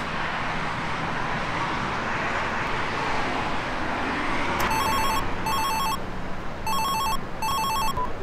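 Mobile phone ringing with a trilling double-ring ringtone: two pairs of short rings starting a little past halfway. Before the rings there is a steady wash of outdoor background noise.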